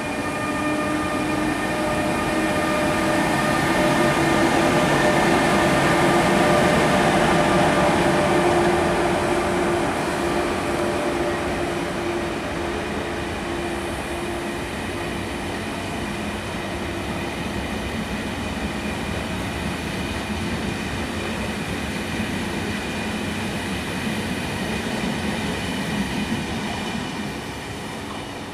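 ÖBB Railjet train hauled by a Taurus electric locomotive rolling through the station, its traction equipment whining in a set of steady tones that rise slightly in pitch as it picks up speed, over the rumble of wheels on the rails. It is loudest about six seconds in as the locomotive passes, then eases as the coaches run by.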